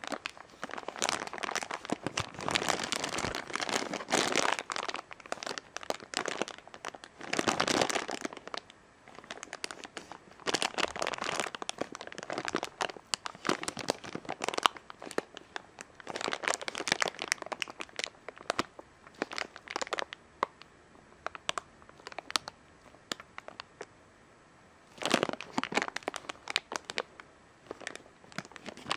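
Thin clear plastic bag crinkling as hands squeeze and turn the figure inside it, in irregular bursts with short pauses and a quiet spell a few seconds before the end.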